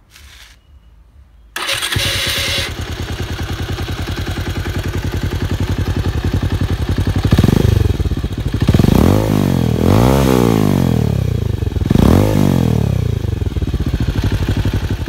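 Bajaj Pulsar 220's single-cylinder engine starting about a second and a half in and idling through an aftermarket Akrapovic-branded slip-on exhaust, then blipped four times, each rev rising and falling in pitch.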